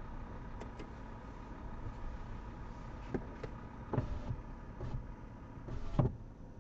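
Stationary car's low, steady idle hum heard from inside the cabin, with a few short sharp clicks or knocks, the loudest about six seconds in.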